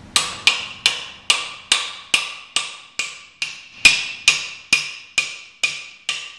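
Hammer blows driving a guide tube into a centrifugal pump's power frame: about fifteen evenly paced strikes, a little over two a second, each with a short metallic ring.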